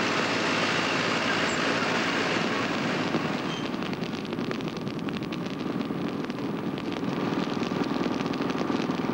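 Crawler bulldozer's diesel engine running steadily, then, from about three seconds in, a forest fire crackling as it burns through dry leaf litter.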